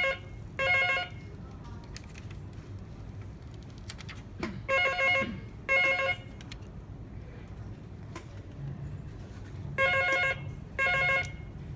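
A telephone ringing in a double-ring pattern: two short rings about a second apart, repeating about every five seconds, three pairs in all.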